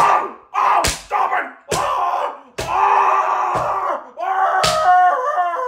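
A string of about six sharp smacks, roughly one a second, each followed by a pained yell, ending in a longer wavering wail.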